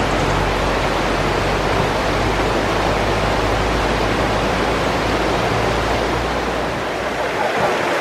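Rushing water of the Langevin mountain river, a loud, steady, even rush. A low rumble underneath fades out near the end.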